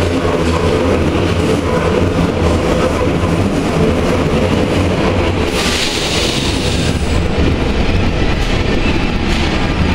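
MCL 80 rack-and-adhesion metro train pulling into an underground station: a loud, steady rumble of motors and wheels on rails, with a burst of hiss about halfway through.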